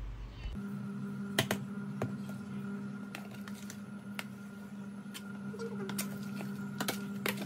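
Metal spoon clicking and scraping against a plastic food container while stirring spice-coated raw chicken cubes, with soft squishing of the meat. A steady hum sounds underneath from about half a second in.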